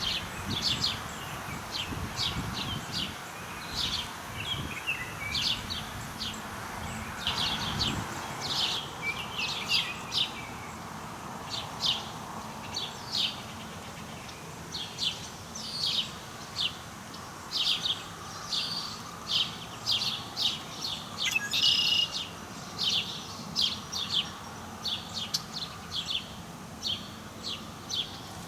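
A bird chirping, short high notes repeated over and over, about one or two a second, with a low rustle of wind under the first several seconds.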